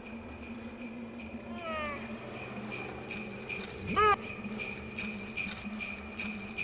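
Sleigh bells on Santa's reindeer sleigh jingling in an even beat, becoming louder and more distinct about halfway in. A brief falling sliding tone sounds about two seconds in, and a louder short rising-and-falling tone about four seconds in.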